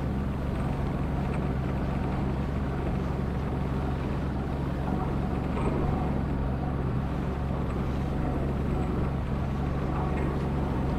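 A boat motor running steadily: an even, unbroken engine hum under a rushing noise.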